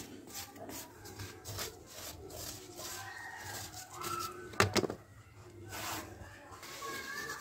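A small metal knife scraping dry mud crumbs across a hard mud-plastered floor in short rasping strokes, then crumbs swept together by hand. There is a single sharp knock about four and a half seconds in.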